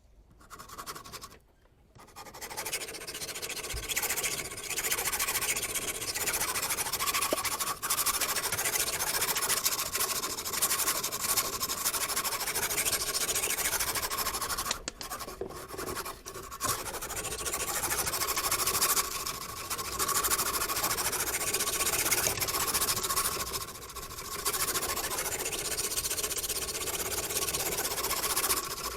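Angled steel knife blade scraping back and forth across a diamond sharpening stone, a continuous gritty rasp with a few brief pauses.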